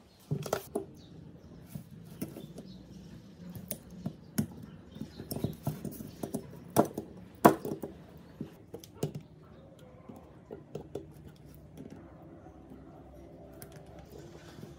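Irregular sharp metal clicks and snaps of tin snips and then pliers working the steel mounting bracket of a small transformer, with handling knocks in between. The loudest snaps come about seven seconds in.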